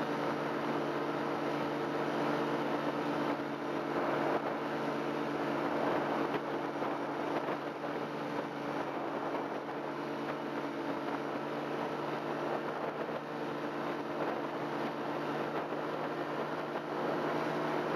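Tandem paramotor's engine and propeller running at a steady pitch in level flight, with a rush of air over it.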